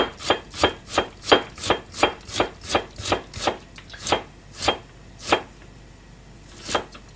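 Kitchen knife chopping a carrot on a plastic cutting board: steady sharp knocks about three a second, slowing and stopping a little after five seconds in, then one last cut near the end.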